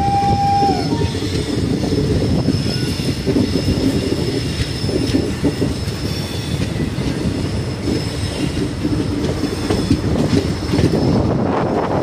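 Indian Railways Self Propelled Accident Relief Medical Van running along the track: a steady loud rumble with scattered wheel knocks and a thin, steady high squeal from the wheels.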